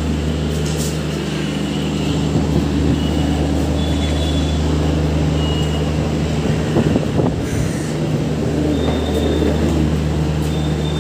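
Steady low mechanical hum of a train standing at a station platform, idling. A few short high tones sound now and then, and there is a brief clatter just past the middle.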